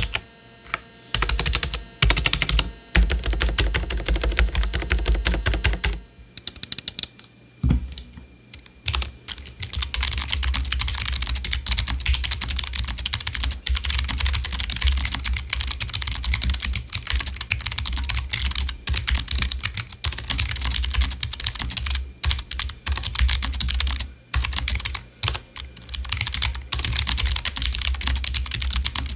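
Typing on a Logitech G810 keyboard with Romer-G tactile switches, a flurry of rapid key presses. After a short lull about six to nine seconds in, steady fast typing follows on a Logitech G915 with its clicky low-profile switches.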